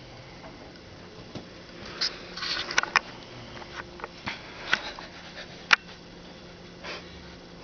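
Snoring and snuffling of a sleeper: short breathy puffs and a few sharp clicks, mostly about two to three seconds in and again around five to seven seconds in, over a low steady background.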